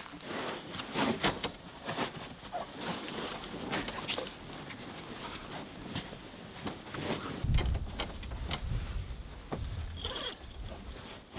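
Rustling and crumpling of a sleeping bag's fabric being spread out and arranged by hand, with many short handling knocks and rubs. About seven seconds in, a low rumble lasts a couple of seconds.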